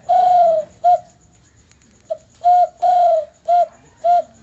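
A man imitating a bird call with his mouth: a series of clear, whistle-like notes on one low pitch, some short and some held longer, with a pause of about a second partway through.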